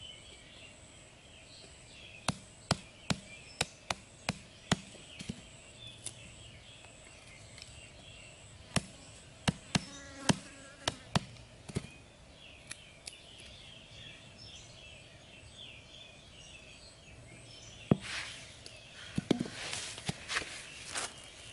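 Small hatchet chopping a thin stick against the ground: two runs of sharp knocks, about two or three a second, with insects buzzing steadily behind. Over the last few seconds come one hard knock and the rustle of sticks and leaves being handled.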